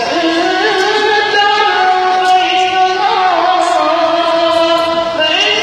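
A boy reciting a Quranic verse in the melodic tajweed style into a microphone: one voice holding long notes with ornamented turns, with short breaks between phrases.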